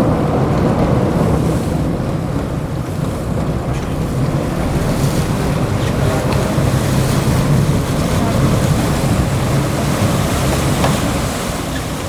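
Sport-fishing boat's engines running steadily, with water rushing along the hull and wind buffeting the microphone.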